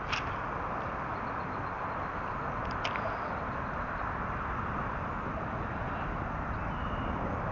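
Steady rushing of a fast-flowing river current, with a couple of faint clicks near the start.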